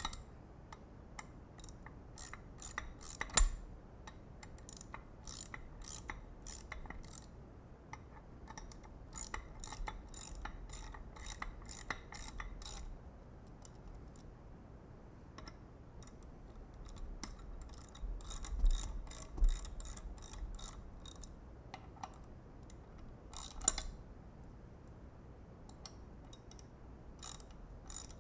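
Ratchet wrench clicking in runs of quick, even clicks as the hub's countersunk screws are tightened a little at a time, with a few sharp knocks of the tool against the metal.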